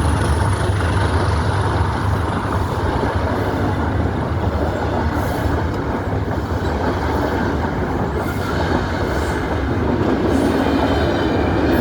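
Passenger train of Mark 3 coaches rolling past close by, a steady loud rumble of wheels on rail.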